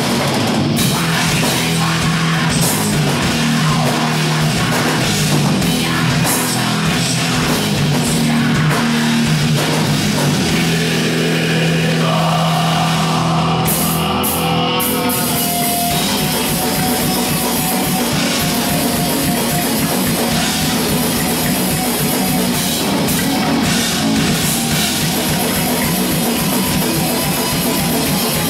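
Live death/thrash metal band playing loudly: distorted electric guitars, bass and drum kit. About twelve seconds in a higher lead guitar line comes through, and from about sixteen seconds the drums turn fast and pounding.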